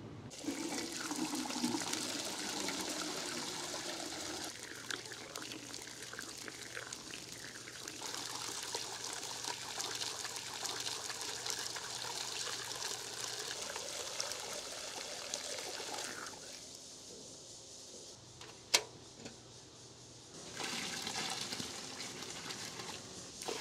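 Soy milk pouring and splashing into a stainless steel vat, a steady watery rush. It drops away about sixteen seconds in, a single sharp click follows a couple of seconds later, and the pouring starts again near the end.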